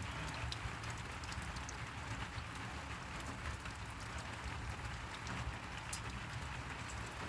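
Steady rainfall, with scattered drops ticking on nearby surfaces.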